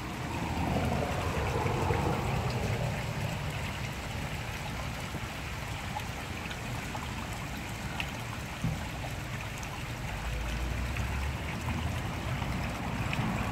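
Steady sound of running water, with a low rumble underneath.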